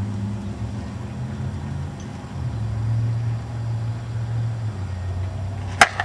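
A prototype slowpitch softball bat hits a softball once, a single sharp crack near the end. Under it runs a steady low rumble.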